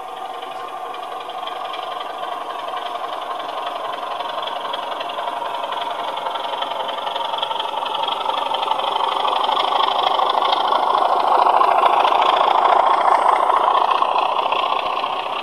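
Digital sound decoder in a model Class 26 diesel locomotive playing its engine sound through small onboard speakers, running steadily and thin in the bass. It grows louder as the locomotive approaches and is loudest just as it passes.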